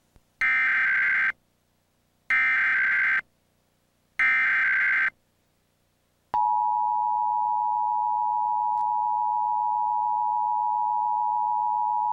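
Emergency Alert System tones for a Required Monthly Test. First come three bursts of SAME header data, each about a second long and about two seconds apart, a harsh digital screech. About six seconds in, the steady two-tone attention signal (853 and 960 Hz) starts and holds.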